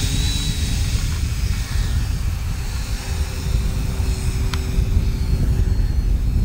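Radio-controlled model biplane's motor and propeller running steadily as it takes off on skis from the snow and climbs away, its tone shifting partway through, over a strong low rumble.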